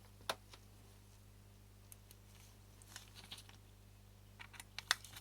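Faint, scattered clicks and taps of a small screwdriver and metal lens parts being handled while screws are fitted into a camera lens barrel, with a few clustered near the end, over a low steady hum.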